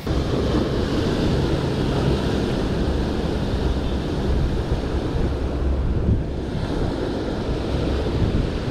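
Sea surf washing onto a rocky shore, with steady wind noise on the microphone.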